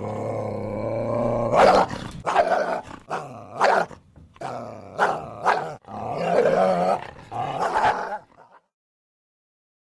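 Coyote barking: a drawn-out opening call followed by a string of harsh barks, about one or two a second, which stop shortly before the end.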